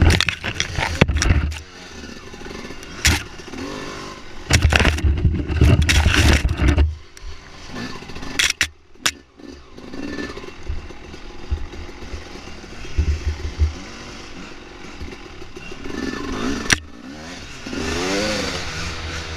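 Dirt bike engine running on a trail ride, swelling under throttle in loud stretches and revving up near the end, with sharp knocks and clatter of the bike over rough ground.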